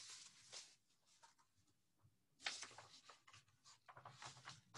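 Faint rustling of a paperback picture book's pages being turned and handled, in three short spells.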